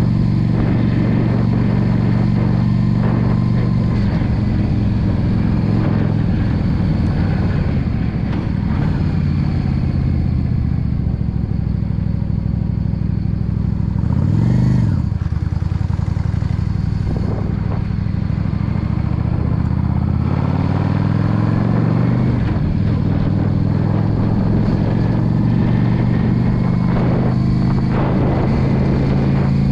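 Yamaha V Star 650 Custom's air-cooled V-twin engine running under way. Its note sinks a little past halfway as the bike slows, then climbs again through the last third as it picks up speed, with a brief swell in the middle.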